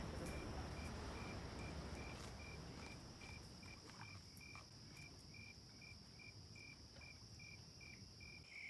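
Faint insect chorus: a cricket chirping in an even rhythm of about three high chirps a second over a steady, higher-pitched trill, with low background noise fading away over the first few seconds.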